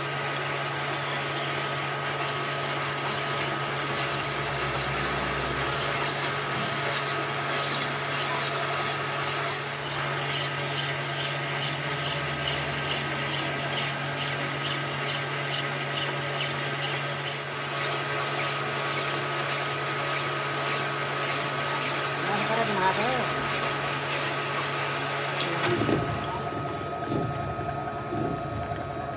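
Hand file rasping against a metal shaft spinning in a manual lathe, in repeated strokes of about two a second, over the lathe's steady motor hum. The hum stops about three seconds before the end.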